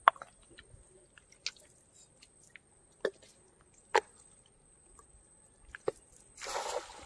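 Water dripping and plinking in scattered single drops, then a short splash about six and a half seconds in.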